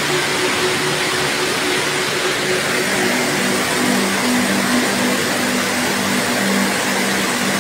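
Flash-flood torrent of muddy water rushing down a road: a loud, steady rushing noise.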